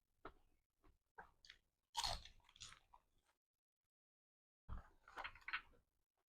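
A person chewing and crunching food close to the microphone, in two spells of short, crisp eating noises with a pause of about a second and a half between them.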